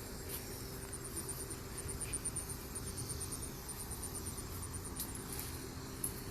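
Insects chirping: runs of five to eight quick high-pitched pulses, each run about half a second long with short pauses between. Under them is a steady low background rumble, and two sharp clicks come near the end.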